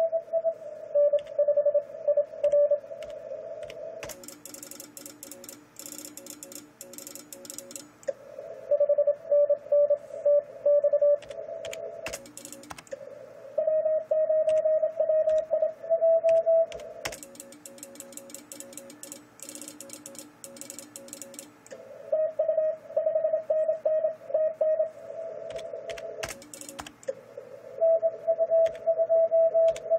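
Morse code (CW) at a contest transceiver, an Icom IC-756PRO III: the transmitter's sidetone sends keyed bursts of a steady mid-pitched tone every few seconds, alternating with fainter, lower-pitched Morse replies from other stations heard through the receiver over band hiss. Scattered sharp clicks run through it.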